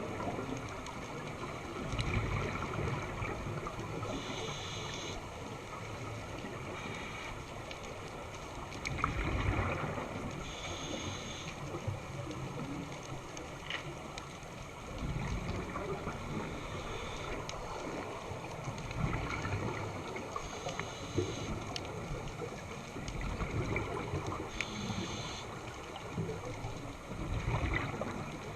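Scuba diver breathing through a regulator underwater. A short hiss on each inhale alternates with a low bubbling rush of exhaust bubbles on each exhale, repeating every five seconds or so.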